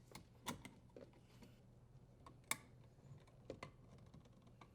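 Faint, scattered clicks and taps of a tool and metal or plastic parts being handled during dishwasher reassembly, the loudest about half a second in and two and a half seconds in, over a low steady hum.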